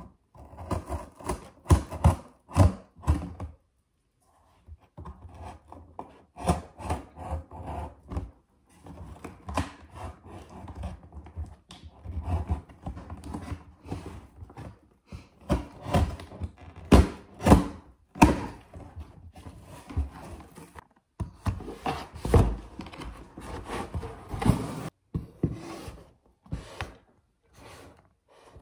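A cardboard shipping box being cut open with scissors and unpacked: irregular knocks and thunks as the box and its contents are handled, with rustling and scraping in between.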